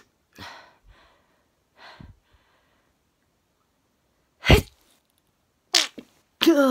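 A woman sneezing: a few soft breaths, then three sharp sneezes in quick succession in the second half, the last one ending in a falling, voiced tail.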